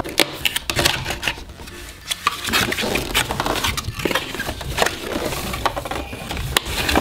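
Cardboard and clear plastic packaging being handled as a box is opened: an irregular run of small clicks, taps, rubs and scrapes as the sleeve is worked off and the cardboard flaps are folded open.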